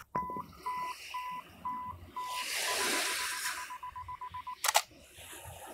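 Camera self-timer countdown: a button click, then beeps about two a second that speed into rapid beeps for the last couple of seconds, ending in the shutter firing with a sharp double click. Faint surf underneath.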